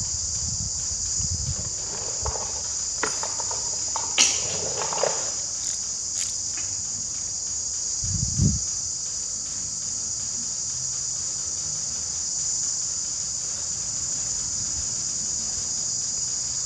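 Steady, high insect chirring throughout, with a few scattered metallic clinks and knocks from engine parts being handled, and a single low thump about eight seconds in.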